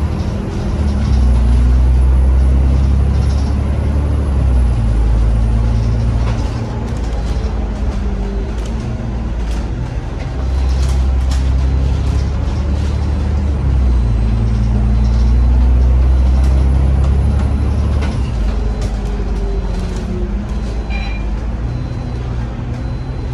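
Cummins diesel engine of an Alexander Dennis Enviro 500 MMC double-decker bus, heard from inside the cabin, pulling the bus along: its note climbs and drops back at several gear changes, about every four seconds, with a faint high whine rising and falling over it.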